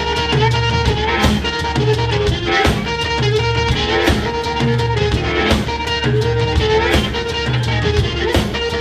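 Live blues band playing an instrumental stretch: electric guitar over a drum kit, with a low riff repeating about every second and a half.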